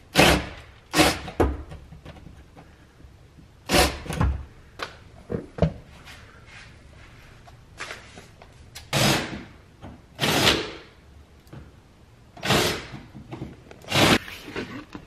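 Power drill with a spade bit boring shallow recesses into a plywood van floor, run in about ten short bursts of under a second each, with pauses between them.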